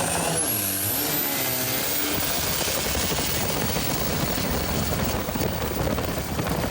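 A motor driving a canoe fast across the water: an engine hum with a high whine rising over the first two seconds, then a steady rushing noise.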